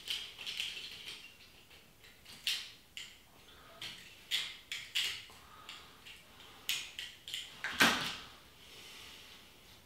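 A small metal cutter scraping dried glue off the end of a glass thermometer tube: short, irregular scratches and clicks. A louder knock comes near 8 s, as of the tool being put down on the table.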